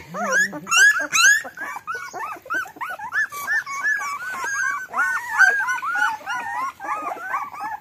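A litter of young puppies whimpering and squealing together: many short, high-pitched, overlapping cries, several a second, without a break.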